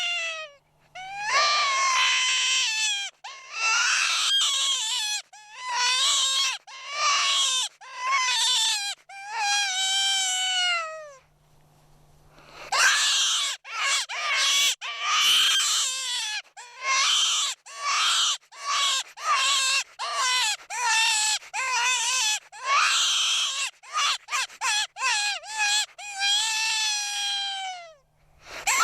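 Close-range squealer predator call making high, wailing prey-distress squeals, used to call in coyotes. First come long squeals about a second each, dropping in pitch at the end; after a short pause about twelve seconds in, they turn into quicker, choppier squeals.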